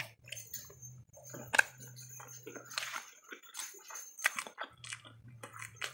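A person chewing a mouthful of spicy instant noodles close to the microphone: irregular wet chewing and lip smacks. A faint low hum sits behind it and drops out for a couple of seconds in the middle.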